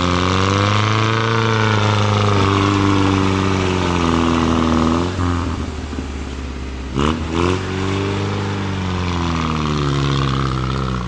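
Off-road vehicle engine revving hard under load, twice: it climbs in pitch, holds for several seconds and drops away, then revs up again. The vehicle is struggling for grip, which the onlookers describe as not pulling.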